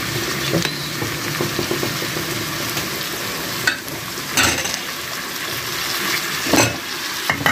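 Diced carrots sizzling steadily in a frying pan, with a few short clinks and knocks of utensils.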